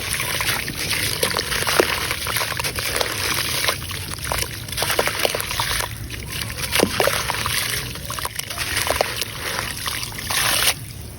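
Grainy sand-cement crumbling and dissolving in water in a clay pot: a steady fizzing hiss with many small splashes and bubbly plops, which stops abruptly near the end.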